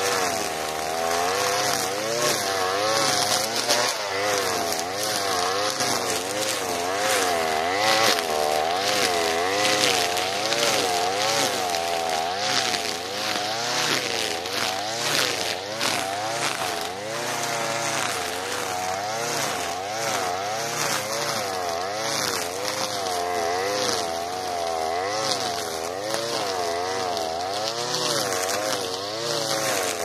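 Alpina Star 55DP two-stroke petrol brushcutter running at high revs while its 3 mm square nylon line cuts through tall grass. The engine pitch rises and falls about once a second as the head swings into and out of the grass, with the crackle of the line striking stems.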